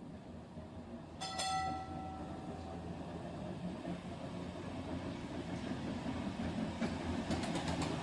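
H0m model tram running toward the camera on 12 mm track, a steady low rumble of motor and wheels that grows louder. A single bell-like ding rings about a second in, and a few sharp clicks come near the end.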